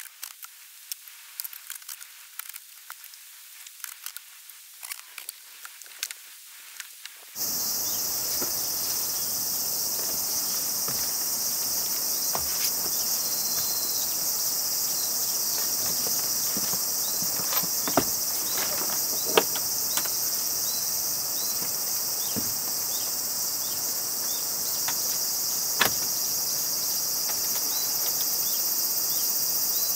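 Faint scattered clicks and light taps, then after about seven seconds a steady, loud, high-pitched chorus of insects. Now and then a sharp knock or footfall sounds over it as a person climbs a wooden ladder into a small wooden camper cabin and moves around inside.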